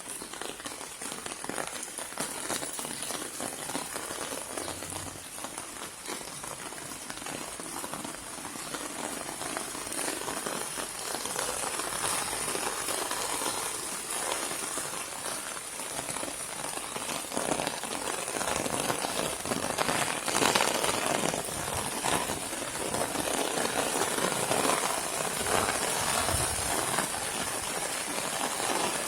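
Rainstorm falling in a courtyard: a dense, steady patter of raindrops that grows louder after about ten seconds.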